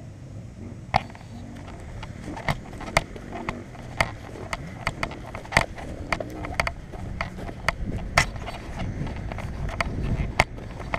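Handling noise from a body-worn action camera while its wearer walks: irregular sharp clicks and knocks, about one to two a second, over a steady low rumble.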